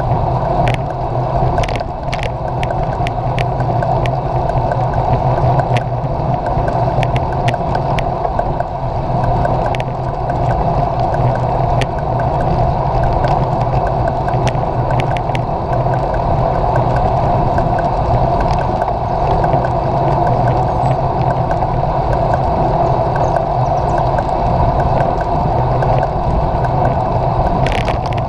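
Wind rushing over a handlebar-mounted action camera's microphone as a bicycle rides along a paved road, with steady tyre and road noise. Frequent sharp clicks and knocks from the bike and mount over the road surface run through it.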